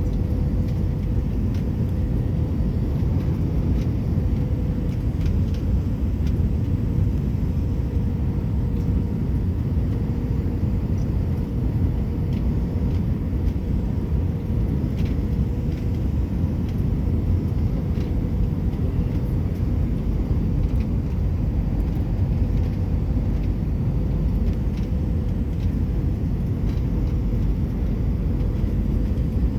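Airliner cabin noise during the descent: a steady low rumble of jet engines and rushing air, with a faint steady hum above it.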